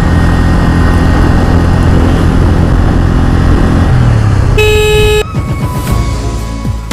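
Road noise of a motorcycle being ridden, a steady engine and wind rush, cut by a short single horn blast about four and a half seconds in. The level then drops and background music comes in near the end.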